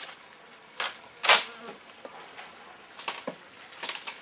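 A steady high-pitched insect buzz, broken by about five short sharp clicks and rustles, the loudest about a second in.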